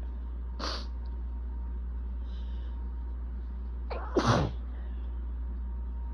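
A person's allergy sneeze. A short, quieter breathy burst comes about a second in, then a quick in-breath and one loud sneeze about four seconds in, over a steady low hum.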